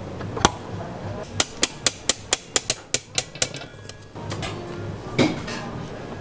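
A wire balloon whisk from a stand mixer is rapped quickly against the rim of the stainless steel mixer bowl, about ten sharp metal taps at roughly five a second, to knock stiff meringue off it. There is a single clack shortly before the taps and another metallic knock near the end.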